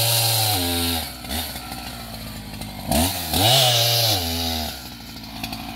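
Two-stroke chainsaw running at full throttle, dropping to idle just after the start, then revving up again for about a second and a half before falling back to idle, as it cuts through a fallen tree trunk.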